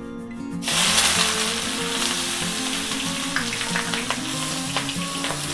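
Sliced onions hitting hot mustard oil in a metal kadhai: a sizzle starts suddenly less than a second in and carries on as steady frying, with a few light clicks of a steel spatula against the pan.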